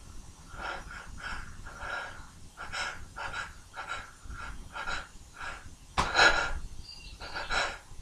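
A man's quick, noisy breaths through the nose and mouth, about two a second, as a tickle-induced sneeze builds. A louder, sharper breath comes suddenly about six seconds in, and another near the end.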